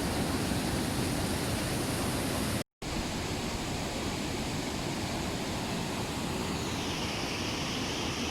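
Waterfall: the steady rush of falling water, cut off for a split second about two and a half seconds in.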